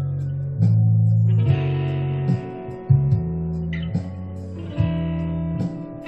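Electric guitar improvising a blues in B: single sustained notes, each picked sharply and changing about once a second.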